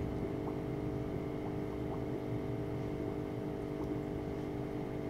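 A steady machine hum made of several even tones over a low rumble, with a few faint light ticks.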